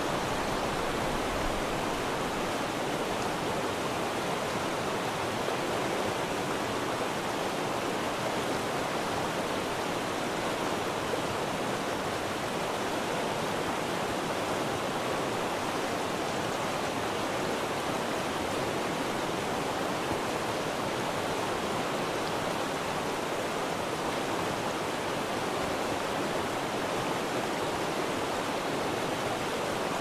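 Fast-flowing river rushing steadily over rocks and through rapids.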